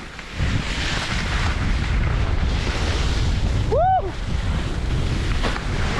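Wind buffeting the microphone with a steady low rumble, over the hiss of skis sliding across snow on a downhill run. About four seconds in, a short tone rises and falls.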